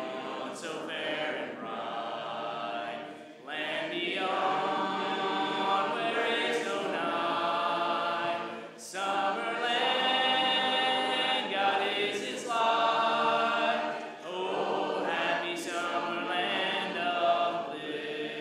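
Congregation singing a hymn unaccompanied, many voices together in long phrases of about five seconds with short breaths between; this is the invitation song that closes the sermon.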